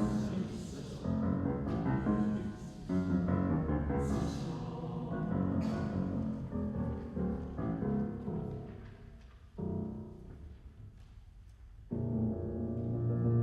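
Piano playing heavy low chords in a classical choral-piano work, fading to a quiet passage, then a loud sustained low chord comes in near the end.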